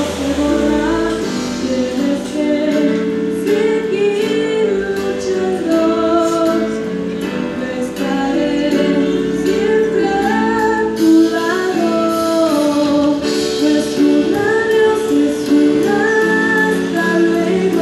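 A boy singing a melody into a handheld microphone over a steady instrumental accompaniment, his voice rising and falling in sung phrases.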